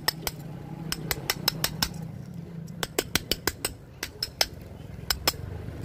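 Sharp metallic clicks and taps in irregular clusters from a flat metal tool striking the slots and core of an electric motor's stator as the old copper windings are pried out.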